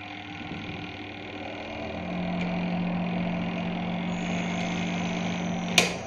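Twin-tub washing machine's spin-dryer motor running after being switched on at the spin timer, getting louder over the first two seconds as the drum spins up, then holding a steady hum. It is working normally now that the faulty wiring has been replaced. A sharp click sounds just before the end.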